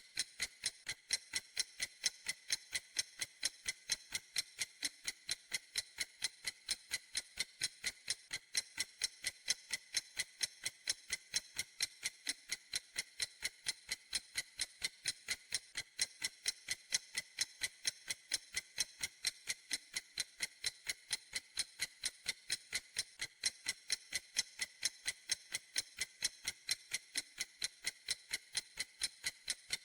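Clock ticking steadily: even, sharp, high ticks, about three a second.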